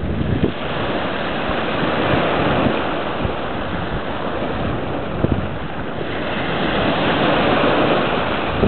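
Small sea waves breaking and washing up over a pebble beach: a continuous rush of surf that swells a little in the last few seconds, with gusts of wind buffeting the microphone.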